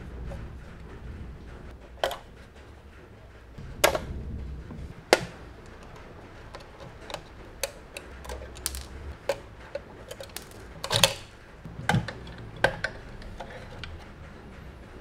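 Light, irregular clicks and ticks of a small screwdriver working screws on a die-cast metal model truck cab, along with the handling of the cab. A handful of sharper knocks stand out, about two, four and five seconds in and around eleven to thirteen seconds.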